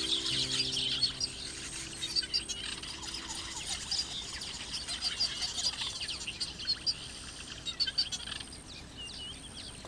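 A dense chorus of many birds chirping and twittering, with an insect's steady high trill. The bird calls thin out near the end, and the trill breaks off and starts again several times.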